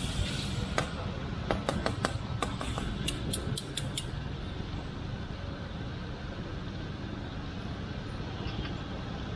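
Metal ladle and tongs clinking against metal cooking pans, a quick run of about a dozen sharp clinks in the first four seconds, over a steady low rumble.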